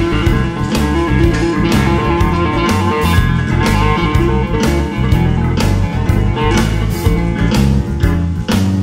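Electric guitar playing melodic lines over a backing track with a steady drum beat and bass.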